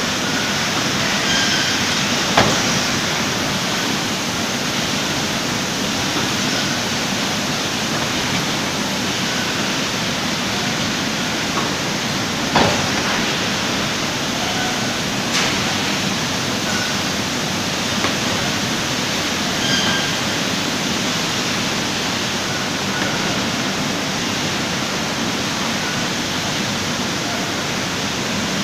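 Steady wash of machine noise from a bottled-water production and carton-packing line, with conveyors and packing machines running. A few sharp knocks stand out, about two seconds in and again about twelve seconds in.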